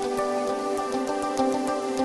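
Background music with sustained notes over a light, regular percussive beat.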